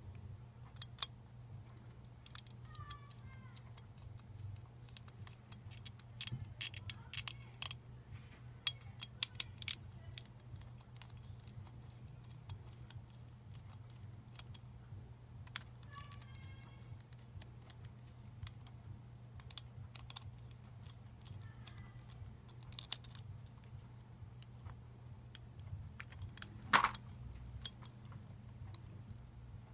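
Small clicks and light metallic clinks of a lightsaber replica's metal hilt parts and hand tools being handled during disassembly, with a few short squeaks and a louder knock near the end, over a steady low hum.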